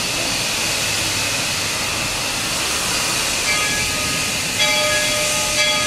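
Denver & Rio Grande Western No. 340, a narrow-gauge 2-8-0 steam locomotive, standing with steam hissing steadily. About three and a half seconds in, a steady ringing tone of several notes joins the hiss and grows louder about a second later.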